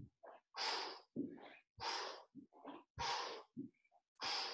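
A man breathing hard in a steady rhythm while holding a plank and moving his legs in and out: four loud breaths out, about one every 1.2 seconds, with quieter breaths in between.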